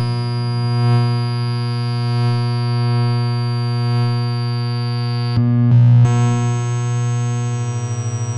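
Electronic music: a sustained synthesizer drone chord of many steady tones over a strong low tone. About five seconds in it breaks with a brief noisy burst, and a new sustained chord follows, its bass starting to pulse rapidly near the end.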